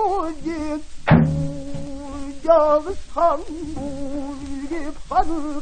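Pansori singing: a solo voice holding long notes with a wavering vibrato. It is accompanied by the buk barrel drum, with a sharp stroke about a second in and another near the end.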